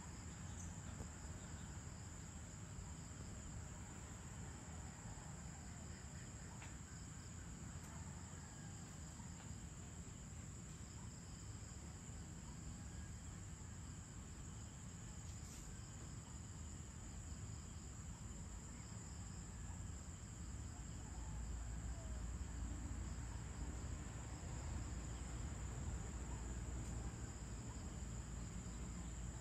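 Evening insect chorus, crickets trilling in one steady, unbroken high-pitched tone. About two-thirds of the way through, a low rumble comes up underneath.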